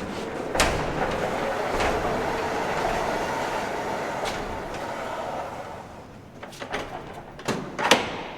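A large shed door rolling open along its track: a click about half a second in, then a steady rolling rattle for about five seconds. Several separate knocks follow near the end.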